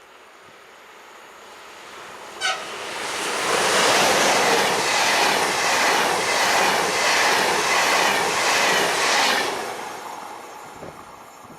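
A train passes at speed, approaching, rushing past and fading away, with its wheels clicking rhythmically over the rail joints. A brief horn toot sounds about two and a half seconds in, just before it reaches the microphone.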